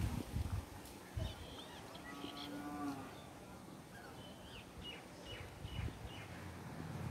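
A cow lowing once, faint and about a second long, roughly two seconds in, with small birds chirping on and off.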